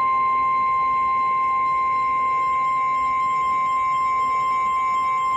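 NOAA Weather Radio 1050 Hz warning alarm tone: a single steady, high-pitched tone held without a break. It signals that an emergency warning message, here a severe thunderstorm warning, is about to be broadcast.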